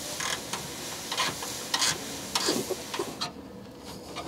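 Ratcheting box-end wrench clicking in short bursts on a nut and bolt being run up, sharp metal ticks every half second or so.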